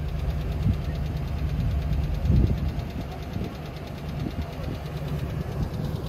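Off-road vehicle's engine idling steadily, with a brief louder rumble a little over two seconds in.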